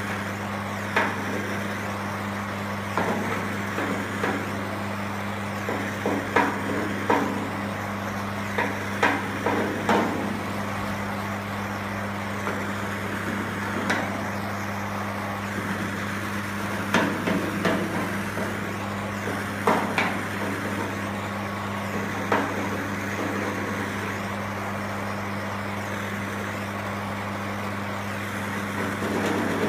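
Wooden lead-working paddles tapping and scraping on softened body lead (body solder) as it is worked smooth over a car body seam: irregular knocks and short strokes, over a dozen, with gaps between them. A steady low hum runs underneath.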